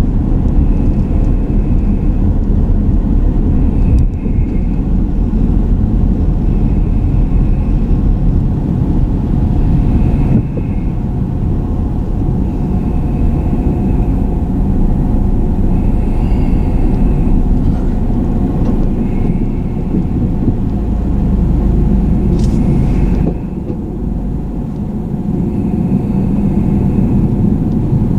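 Car driving along a road: steady engine and tyre rumble, briefly quieter a little after the middle.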